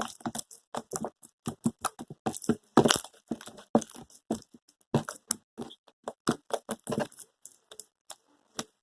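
Sticky slime being squished and stretched in the hands, giving a dense, irregular run of wet clicks and pops that stops briefly near the end.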